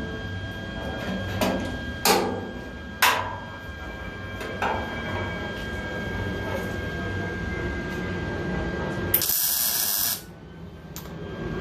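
Tack-welding on sheet-metal body panels: a few sharp metal knocks, then a single tack weld about a second long, a loud hiss that stops suddenly near the end.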